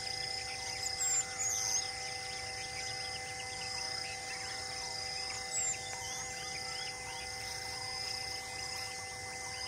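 Insects chirring in a steady pulsing high band, with a few short high bird chirps about a second in and again near the middle, over several steady held tones.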